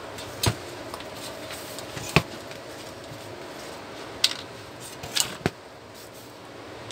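Handling knocks from a disassembled Epson TM-U220 dot-matrix printer: its loose metal print mechanism and sheet-metal chassis clack about five times, singly about half a second, two and four seconds in, then a quick pair just after five seconds.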